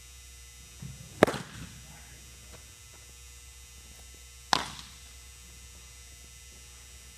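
A pitched baseball smacks into a catcher's leather mitt about a second in, then the return throw pops into the pitcher's glove about three seconds later. Both are single sharp pops that echo briefly off the large hall; the first is the louder.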